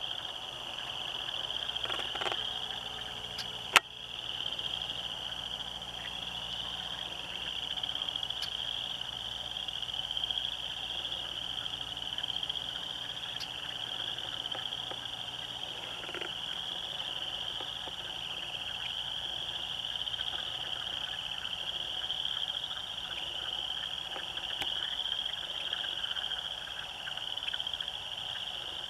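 Pond frogs in a spring breeding chorus: a dense, steady mass of overlapping trills, with a single sharp click about four seconds in.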